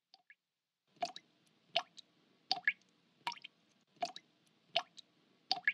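Water dripping in slow, even drops, about one every three-quarters of a second, each a short rising plop.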